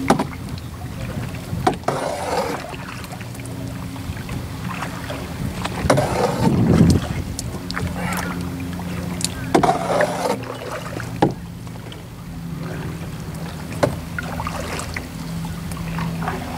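Canoe paddle strokes in the water, a swish and splash about every four seconds, with a few light knocks in between. A faint steady low hum runs underneath.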